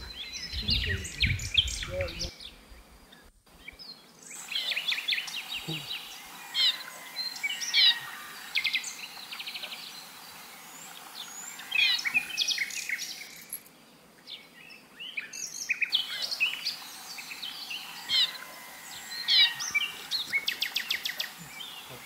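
Several forest birds calling: repeated short chirps, quick sweeping whistled notes and rapid trills, with no single steady song.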